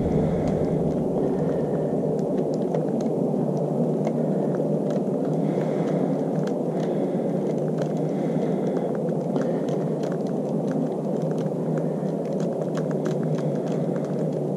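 Small irregular metal clicks of a screwdriver turning a long bolt out of a bath fan's housing, over a steady low background noise.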